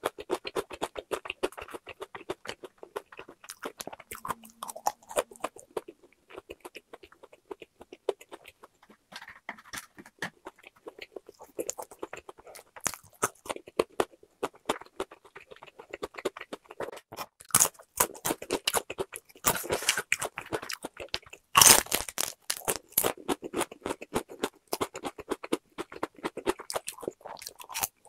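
A person chewing crispy boneless fried chicken with a powdered-seasoning coating: a dense, continuous run of small crunches as the crust breaks between the teeth, with the loudest crunches about three-quarters of the way through.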